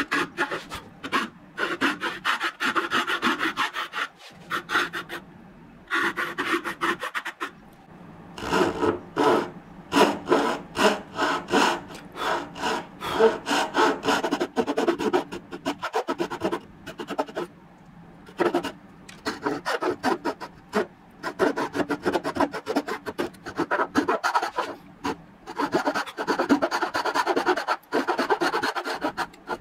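Fine-toothed hand saws cutting hardwood for a mitred dovetail joint: quick, even back-and-forth strokes in runs, broken by several short pauses.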